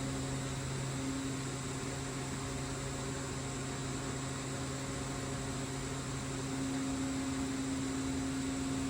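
Steady electric hum of the CNC robot cell, with the robot arm's servo motors running. A low steady tone grows louder about six and a half seconds in as the arm moves.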